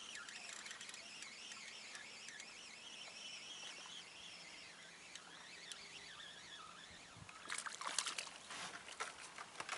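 Faint, quiet outdoor background, then about three-quarters of the way in a hooked perch splashes and thrashes at the water's surface beside an inflatable boat for about two seconds as it is reeled in.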